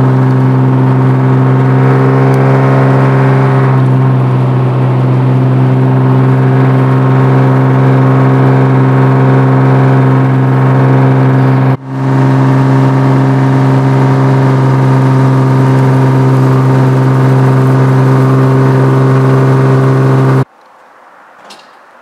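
Inline-six engine and exhaust of a 1992 Mercedes 190E, heard from inside the cabin at a steady highway cruise: a loud, even drone that holds one pitch, the engine running on all six cylinders with its misfire fixed. It breaks off for a moment about halfway through and stops suddenly near the end.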